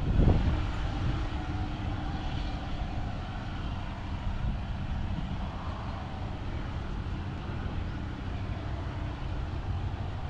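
Diesel-electric locomotive running as the train draws away down the line: a steady low engine hum over a rumble.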